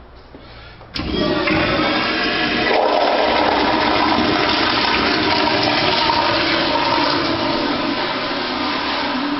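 Public-restroom toilet flushing: a sudden loud rush of water starts about a second in and carries on steadily.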